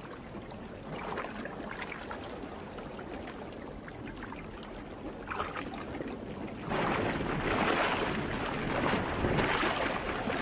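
Rushing, churning river water, a steady noisy wash that grows clearly louder about two-thirds of the way in.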